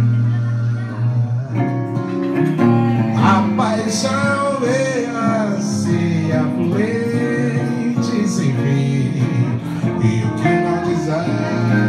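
Two guitars playing a song together, one an archtop hollow-body electric, with a man's voice singing a melody over them.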